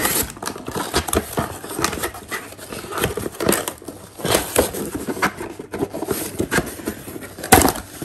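Corrugated cardboard packaging being handled: flaps and inserts scraping, rustling and knocking irregularly as an attachment is pulled out of the box, with a sharper knock near the end.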